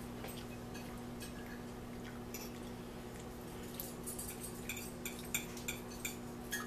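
Light clicks and clinks of cutlery against a dinner plate while eating, sparse at first and more frequent in the second half, over a steady low hum.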